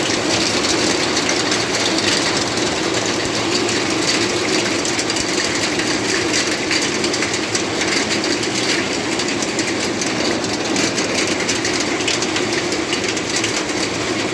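Hailstorm: heavy falling rain with hailstones striking hard surfaces in a dense, unbroken stream of sharp little hits over a steady hiss.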